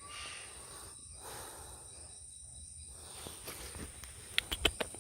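Steady high-pitched drone of rainforest insects, with a few sharp clicks about four and a half seconds in.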